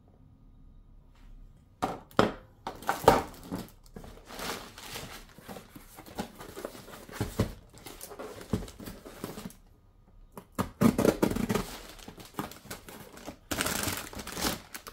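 Packaging being handled and unwrapped: irregular crinkling and rustling with a few knocks, starting about two seconds in, pausing briefly, then dense crinkling near the end.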